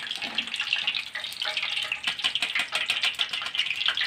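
Hot cooking oil sizzling and crackling in a wok around battered banana fritters being deep-fried, a dense steady patter of tiny pops.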